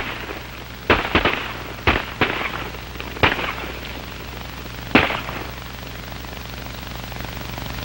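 Gunshots from an old Western film soundtrack: about six shots, some in quick pairs, over the first five seconds, then none. A steady low hum and hiss of the aged film sound track runs beneath.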